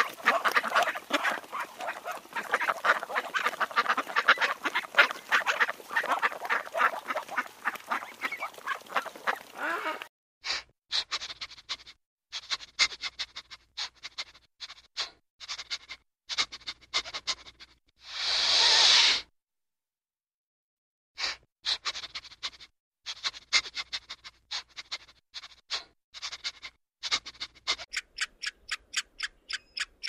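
Mallard hen quacking in a fast run of calls that stops abruptly about ten seconds in. After that come sparse soft clicks with one short hiss, and near the end a fast, even ticking, about four a second.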